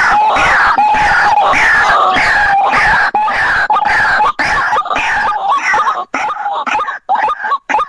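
White-breasted waterhen (ruak-ruak) calls from a bird-lure recording: a loud, harsh run of repeated croaking notes, about two to three a second, each sliding downward. Near the end the calling breaks up into shorter, spaced notes.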